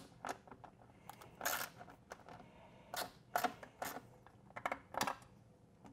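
A hand tool loosening small bolts on a plastic motorcycle rear fender: short, irregular metallic clicks and brief scrapes, with a slightly longer rasp about a second and a half in.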